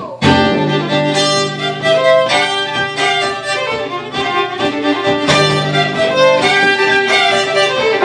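Two fiddles and an upright double bass start a folk tune together, coming in sharply right at the start and playing on at full volume.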